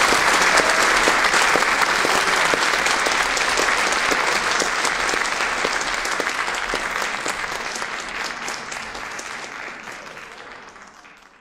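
Audience applauding with dense clapping that slowly fades, then cuts off sharply at the very end.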